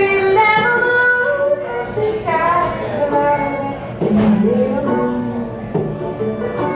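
Fiddle and banjo playing an instrumental break together: the bowed fiddle carries a melody of held notes over the banjo's picking.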